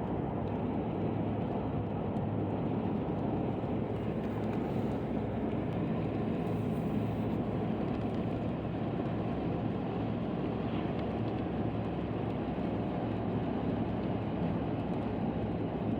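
A car driving at a steady speed: a constant rumble of road, tyre and engine noise with no changes.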